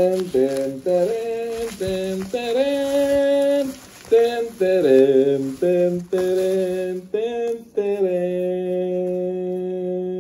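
A person humming a tune, note by note, ending on one long held note from about eight seconds in.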